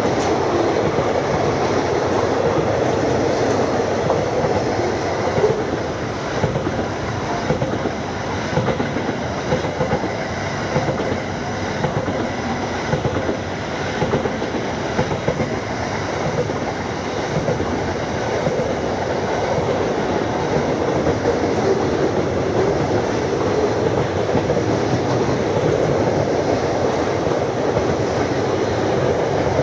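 Freight wagons, boxcars and container flats, rolling steadily past: a continuous rumble of steel wheels on rail with small irregular clatters.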